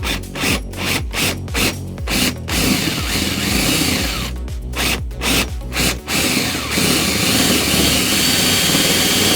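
Power drill boring the hole for the kill switch in the scooter's bodywork, run in short stop-start bursts for the first couple of seconds and again about five seconds in, otherwise running steadily. The drill is held lightly without being pushed, so it is slow to cut through.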